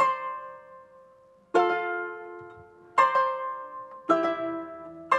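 Paraguayan harp playing four slow plucked chords, each ringing out and fading before the next.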